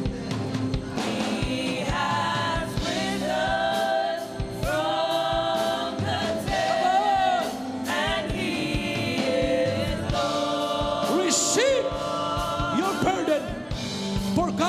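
Gospel worship music: a choir and singers performing with a band, with regular drum beats.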